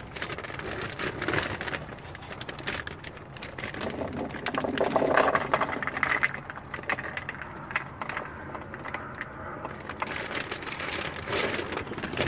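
Hard boilie bait balls poured from a plastic bag into the plastic hopper of a Ridge Monkey boilie crusher: a dense, rain-like rattling patter of many balls landing on plastic and on each other, heaviest about five seconds in.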